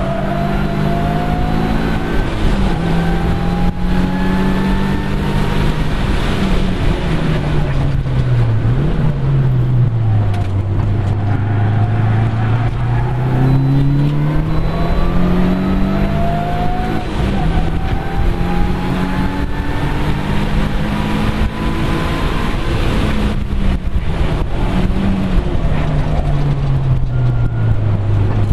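Mitsubishi Lancer Evolution VI Tommi Mäkinen Edition's turbocharged 2.0-litre four-cylinder driven hard on track. The revs climb and drop sharply at each gear change, fall away under braking about a third of the way in, and then climb again.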